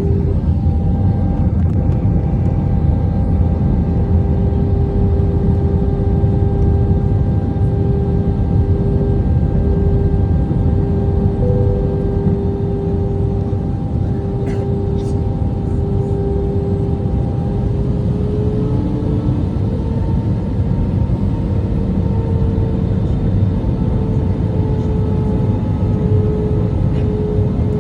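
Airbus A319 cabin noise in flight: a steady, deep rumble of airflow and jet engines with a humming engine tone that rises slightly in pitch about two-thirds of the way through, as thrust is changed.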